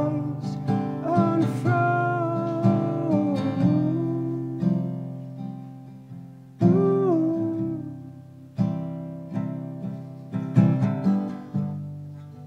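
Solo acoustic guitar played with a man singing over it. There is a long sung phrase in the first few seconds and a short one about halfway. Between them the guitar's notes and chords ring out and fade.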